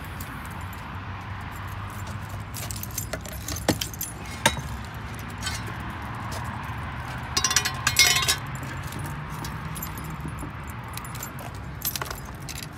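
Metal detecting gear being handled in a car's cargo area: clinks, knocks and rattles as a Garrett AT Max detector, its cable and a digging tool are shifted about. A louder clatter comes a little past halfway, over a low steady rumble.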